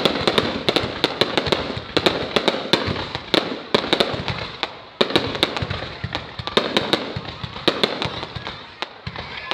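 Fireworks going off: a rapid, irregular string of sharp bangs and pops over a continuous crackling hiss.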